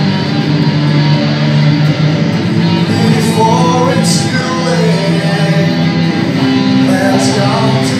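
Two electric guitars played together through amplifiers, sustained chords with a melodic line on top. A voice sings along at the microphone from about three seconds in.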